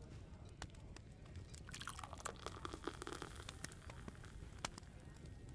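Open wood fire crackling: sharp irregular pops over a low rumble. About two seconds in, a denser burst of crackling and clatter lasts a second or so.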